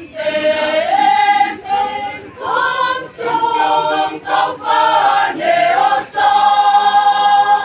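Choir singing, in short phrases with brief breaks between them, closing on a long held note near the end.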